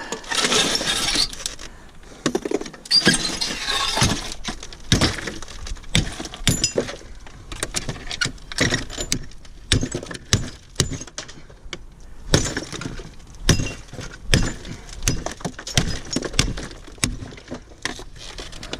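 Brittle scrap metal being smashed apart with repeated sharp, irregular blows, with pieces clinking and crunching as they break, to free chunks of brass.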